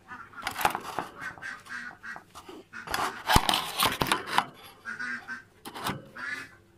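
Close rustling and scraping of hay and fur as a white rabbit moves about in its cage right against the phone, in irregular bursts loudest about three to four seconds in. Two short pitched squeaks come about five and six seconds in.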